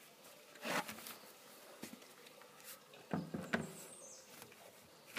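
A green plastic septic tank lid being picked up and set onto a corrugated plastic riser: a brief rustle about a second in, then a quick cluster of plastic knocks and scrapes about three seconds in as the lid is seated.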